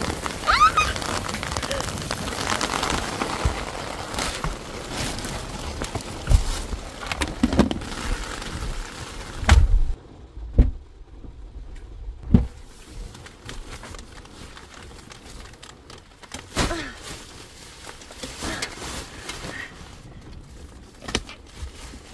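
Rain hissing, with bags and gear being handled in and around a car. About ten seconds in comes a heavy thump, after which the rain noise drops away sharply, followed by scattered knocks and bumps.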